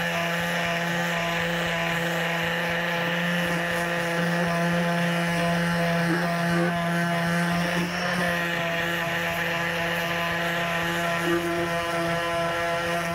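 Electric power sander running at a steady speed with a constant motor hum, sanding down small boat parts as prep for paint.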